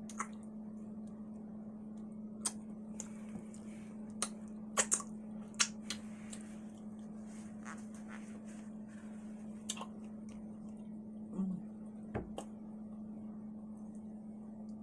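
A person chewing food close to the microphone, with sporadic short wet mouth clicks and smacks, over a steady low hum.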